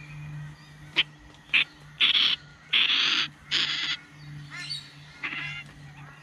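Harsh bird calls: a sharp click, then three raspy hissing bursts in quick succession, followed by a short, quieter buzzy rattle.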